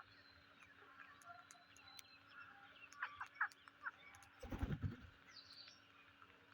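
Psittacula parakeets giving a few short chirps about three seconds in, and a short high call soon after. A brief low rumbling rustle comes about four and a half seconds in, the loudest sound here.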